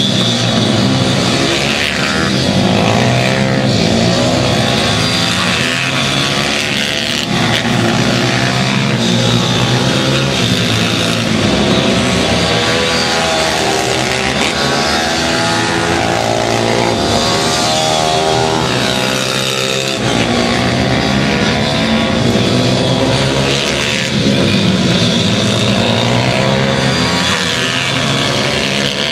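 Several pit bikes racing together, their small engines running hard and overlapping, each rising and falling in pitch as the riders accelerate and back off.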